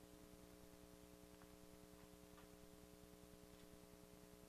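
Near silence: a faint steady hum, with a couple of very faint ticks.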